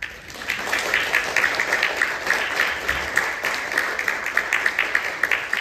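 Audience applauding: dense clapping from many hands that starts suddenly and keeps up steadily.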